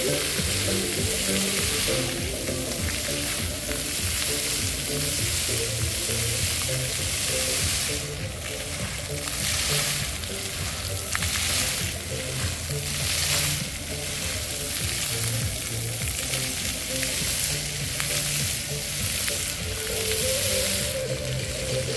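Dancing-fountain water jets spraying and pattering onto wet paving, a steady hiss that swells in surges as the jets rise and fall.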